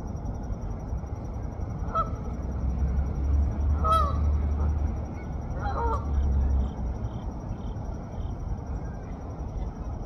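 A goose honking three times, about two seconds apart, each call a short nasal honk falling in pitch, over a low rumble that swells in the middle.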